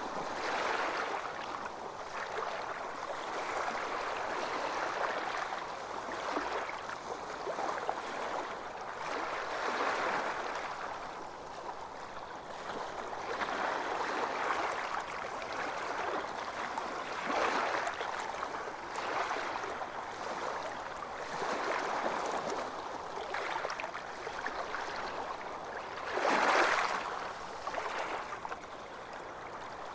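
Small waves washing onto a beach, a continuous hiss of surf that swells and recedes every few seconds, with one louder wave breaking near the end.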